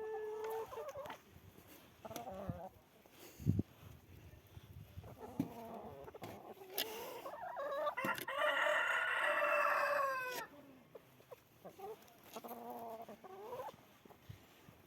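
A rooster crows once in one long call of about two and a half seconds, the loudest sound here. Shorter chicken calls come around it. There is a single thump about three and a half seconds in.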